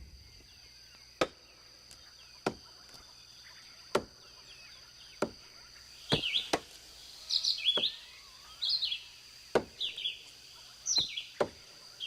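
Film forest ambience: a series of sharp single knocks, about one every second and a half, over a thin steady high tone. Birds start chirping about halfway through.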